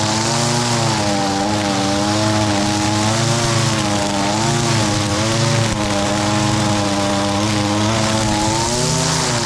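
Echo SRM-225 string trimmer's two-stroke engine running at high throttle while the line cuts tall, thick grass. The engine pitch wavers a little as it works, over a steady high hiss.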